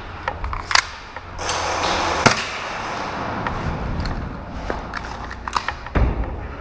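Scattered sharp cracks and knocks of indoor airsoft play, the loudest about a second and two seconds in, over a rustling hiss from the wearer's gear as he moves.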